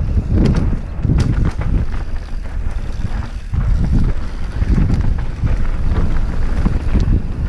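Wind buffeting the camera microphone during a fast mountain-bike descent on a dirt trail, with the tyres rumbling over the ground in surges and several sharp knocks and rattles from the bike over bumps.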